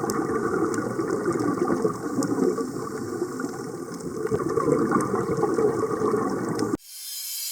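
Churning, bubbling water with scattered faint clicks, like underwater sea ambience. About seven seconds in it cuts off abruptly and gives way to a short rising whoosh.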